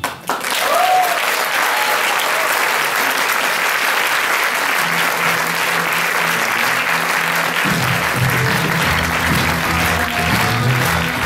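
An audience applauding steadily. Music comes in under it: low bass notes start about five seconds in and grow fuller a little before eight seconds.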